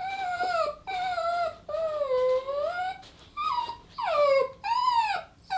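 A pet dog whining in a string of about six long, high whines that bend up and down in pitch. It is begging for a bauble it wants and is not being given.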